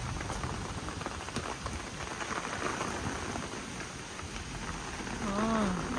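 Steady rain falling on a tarpaulin rain cover over a chicken coop during a storm, with a short voice-like sound near the end.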